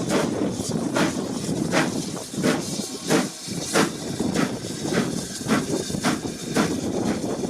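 Steam locomotive working, its exhaust beats coming about twice a second over a steady hiss of steam.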